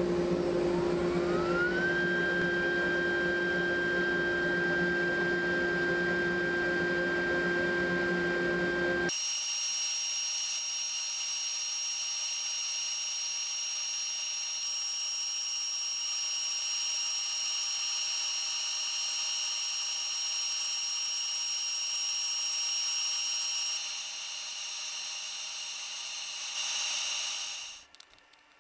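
CNC router spindle spinning up with a whine that rises over the first couple of seconds and then holds steady over a low hum. About nine seconds in, it switches abruptly to a higher, steady whine with a hiss as the bit cuts into the wooden panel, and it stops near the end.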